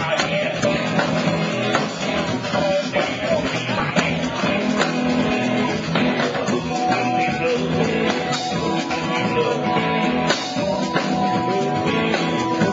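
Blues-rock band playing live: guitar over a drum kit, continuous and steady, with held guitar notes in the second half.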